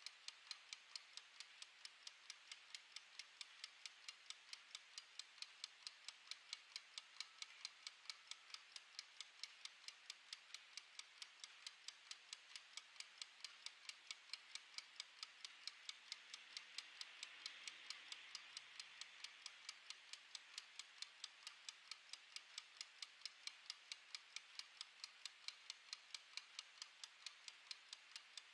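Mechanical wind-up kitchen timer's clockwork ticking: soft, fast, evenly spaced ticks as it counts down.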